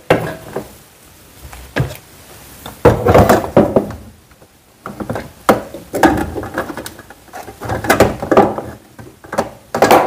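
Scattered knocks and clatter of things being handled and bumped in a kitchen wall cupboard during cleaning, a sharp knock every second or so with short clattery runs between.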